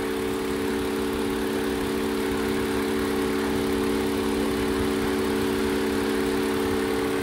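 Toyota Avalon engine idling with a steady hum while one cylinder misfires, which the mechanic traces to a clogged number 2 fuel injector that fires but sprays no fuel.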